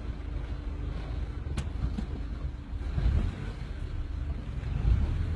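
Steady low rumble of wind buffeting a phone microphone, with two short clicks a little under two seconds in.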